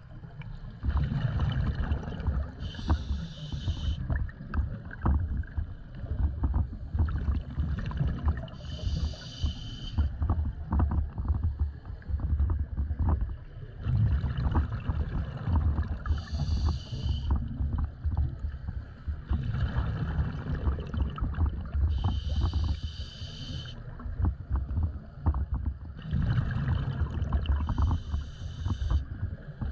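Scuba diver breathing through an open-circuit regulator underwater. A hissing in-breath of about a second comes five times, roughly every six seconds, and between them the exhaled bubbles make a low rumbling and bubbling.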